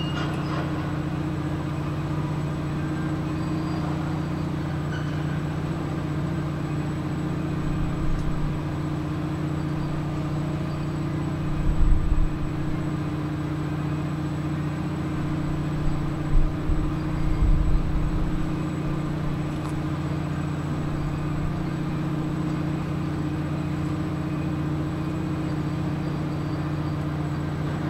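Steady low drone of idling diesel machinery with a constant hum. A few low rumbles swell up about a third and about two thirds of the way through.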